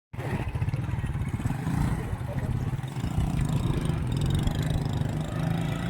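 A vehicle's engine running steadily, a low pulsing drone.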